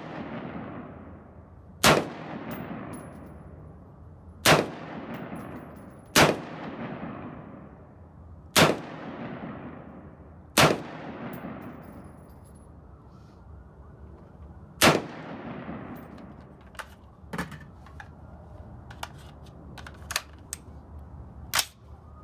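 LWRC Individual Carbine direct-impingement rifle fired semi-automatically, six single shots at uneven gaps of two to four seconds, each followed by a long fading echo. Several much quieter sharp knocks follow near the end.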